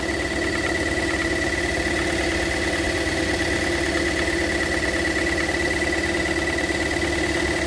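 Toyota Verso engine idling steadily with a steady high whine over it, freshly fitted with a new timing chain and running smoothly without vibration while it warms up to operating temperature.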